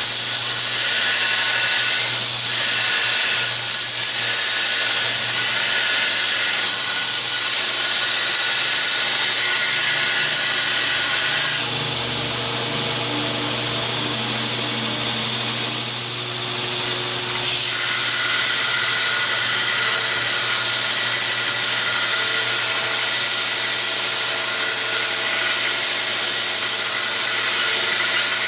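Homemade belt grinder running steadily, its motor humming under the hiss of the abrasive belt. Midway through, the sound grows harsher for about six seconds.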